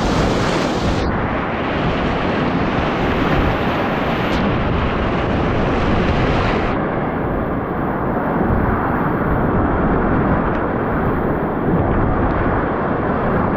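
Rushing class IV whitewater churning around a kayak, heard close up through a GoPro with water splashing over it. The sound turns duller about a second in and again about halfway through.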